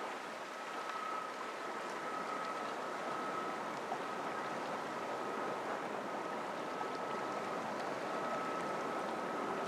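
Steady rushing of river water at the shore, with a faint high steady whine under it.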